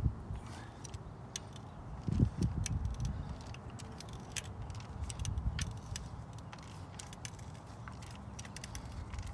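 Socket ratchet clicking in short, irregular runs as it is worked back and forth on a spark plug socket, with a dull low bump about two seconds in.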